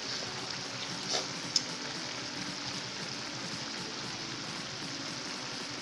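Shrimp in red chili sambal sauce simmering in a frying pan, giving a steady bubbling sizzle. There are two small clicks a little after a second in.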